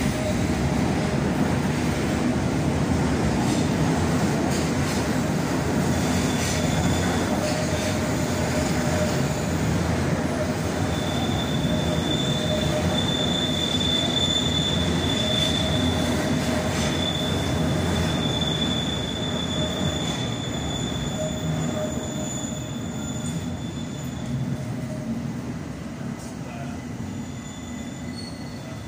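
Metropolitan line S8 Stock Underground train running along the platform: a steady rumble of wheels and traction motors, with a high-pitched wheel squeal strongest through the middle. The rumble eases somewhat over the last third.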